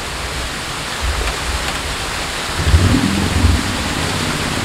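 Steady rushing of a nearby waterfall, with a low rumble swelling about one second in and again around three seconds in.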